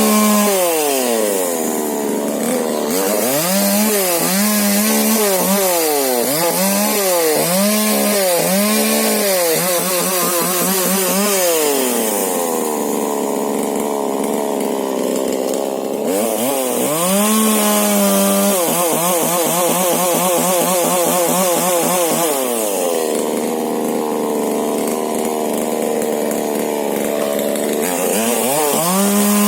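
Husqvarna 125 two-stroke chainsaw with a modified exhaust cutting into a rubber tree: the engine note repeatedly dips under load as the chain bites and recovers, with steadier spells in between and quick revs about halfway through and near the end.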